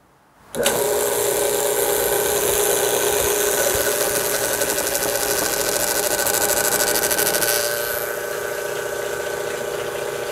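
Commercial reverse-osmosis booster pump switching on about half a second in and running with a steady mechanical hum and a loud hiss, typical of air still in the system at start-up. After about seven seconds the hiss drops away and it settles a little quieter, the normal running sound of a pump that is not cavitating.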